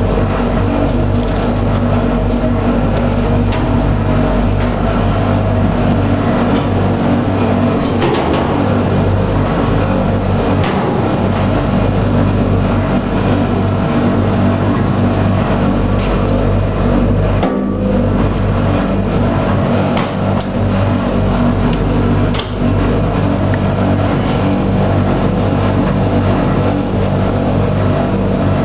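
Elux commercial washing machine running: a steady loud hum with a few short knocks along the way.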